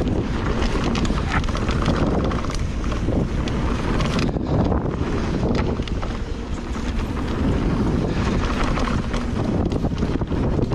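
Wind rushing over the microphone while a Santa Cruz Megatower carbon full-suspension mountain bike rolls fast down a dirt trail, its frame and parts rattling with many small quick knocks over the bumps.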